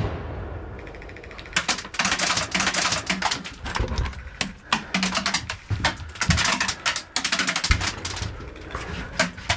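Rustling and rapid clicking clatter in clusters, with a few low knocks, as a player moves and handles gear inside a small wooden hut.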